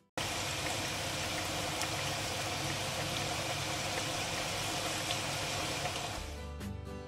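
A steady hiss with a few faint crackles, cutting in suddenly and fading out about six seconds later as guitar music returns.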